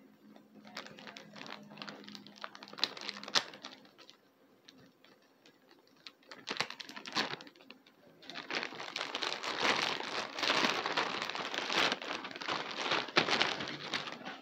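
Plastic bag crinkling as a plush figure is worked out of it, in three bouts; the last is the longest and loudest.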